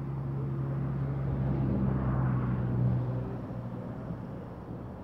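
A motor vehicle's engine hum, steady and low, swelling about two seconds in and then fading away a little past three seconds.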